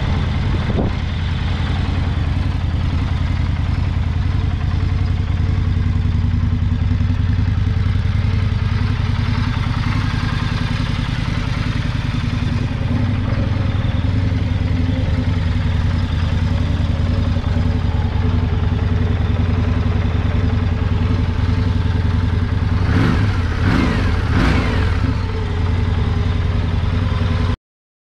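Indian Scout Bobber's liquid-cooled V-twin idling steadily, with its pitch briefly rising and falling a couple of times near the end. The sound cuts off abruptly just before the end.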